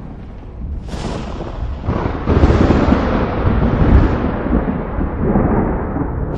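Thunder: a sharp crack about a second in, then a loud rolling rumble from about two seconds in that gradually dies away.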